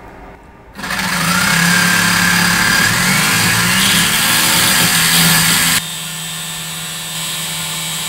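Small DC electric motor spinning a 3D-printed propeller inside a metal tube, starting suddenly about a second in with a loud whir and rush of air, its whine rising in pitch as the supply voltage is turned up. Near the end the level drops to a quieter, steady motor hum.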